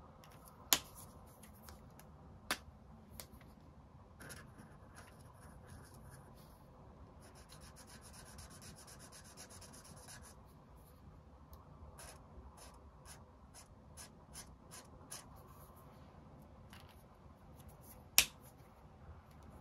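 Faint scratching of a brush-tip marker pen stroked across paper, with a few sharp clicks and small ticks. The loudest click comes near the end.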